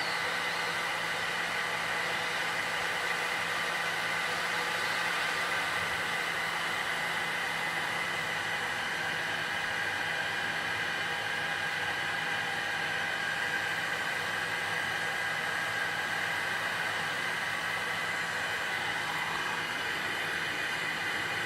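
Heat gun blowing continuously: a steady rushing hiss with a constant whine, as it heats a graphics card's GPU chip to reflow the solder.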